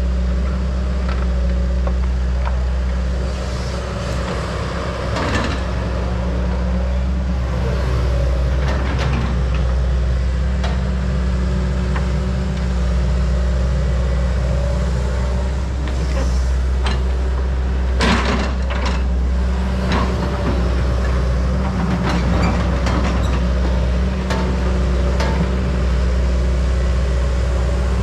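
John Deere 120C excavator's diesel engine running steadily under hydraulic load as it digs rocky dirt, with scattered knocks and clatter from the bucket and rocks.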